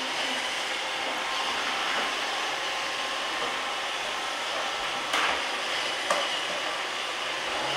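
Robot vacuum cleaner running with a steady whirring hum, with two short sharp knocks about five and six seconds in.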